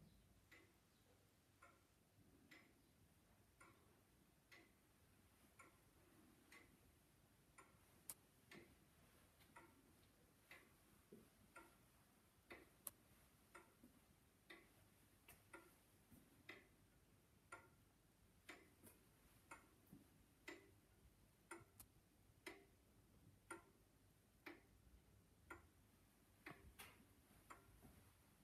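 Wall pendulum clock's open skeleton movement ticking, with its escapement giving short, faint, evenly spaced ticks.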